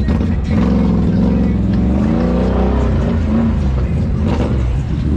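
Off-road vehicle engine revving in the mud, its pitch climbing and dipping for about three seconds, over the steady low running of idling ATV engines.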